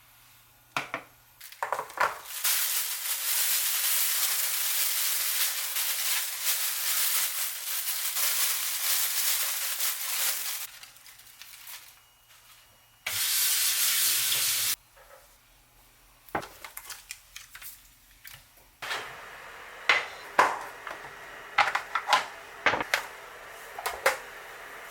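Food sizzling in a hot frying pan, in two steady stretches, the second cut off abruptly. Then a run of light clinks and taps of utensils and dishes.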